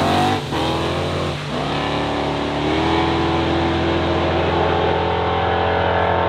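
Two drag-racing cars accelerating flat out away down the road. The engine note breaks and climbs again at two gear changes, about half a second and a second and a half in, then holds a steady high pitch as the cars pull away.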